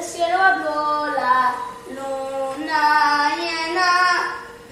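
A girl singing solo: a slow melody in two phrases with long held notes, the second phrase fading out near the end.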